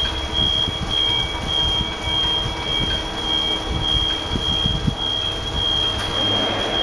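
Big bag loader machinery running: a steady high-pitched tone over a continuous low mechanical rumble.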